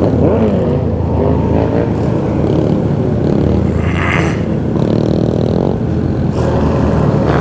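Several motorcycle engines running together while riding. In the first second or two the engine pitch glides up and down as throttles are worked, and the engine note stays steady after that.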